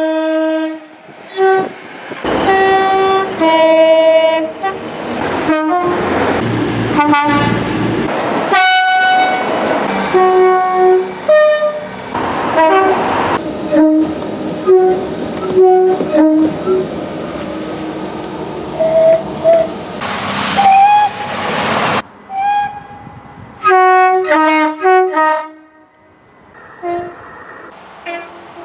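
Train horns sounding over and over, many short blasts in quick succession, several stepping between two notes, with the noise of passing trains running on the rails between them. The sound changes abruptly several times, as one recording gives way to the next.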